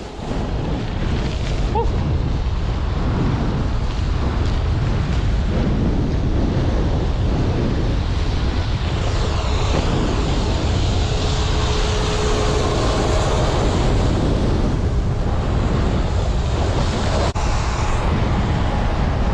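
Strong wind buffeting the camera microphone while snowboarding downhill, a loud, steady low rumble. The snowboard's hiss on the snow grows brighter for several seconds midway.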